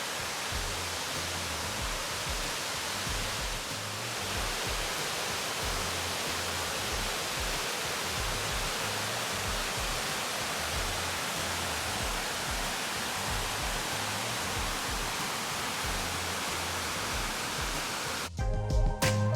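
Steady rush of falling water, with a music track's low beat pulsing faintly under it. Near the end the water noise cuts off suddenly and the music comes up louder.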